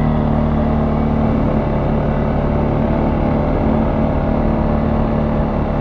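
CFMoto ATV's single-cylinder four-stroke engine running at an even speed as the quad rides along a muddy dirt track.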